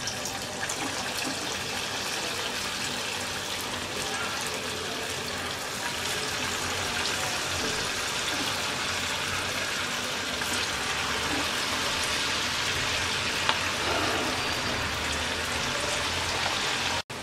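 Potato pakora fritters deep-frying in hot oil in a pan: a steady, even sizzle that grows a little louder as more fritters go in.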